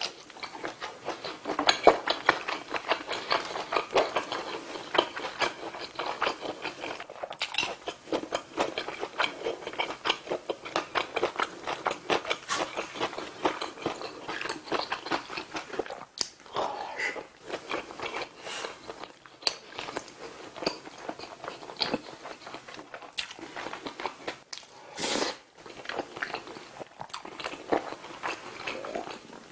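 Close-miked chewing and wet mouth sounds of a person eating skewered tteokbokki in thick spicy sauce: a fast run of small sticky clicks and smacks. Near the end there is one louder, longer noisy burst.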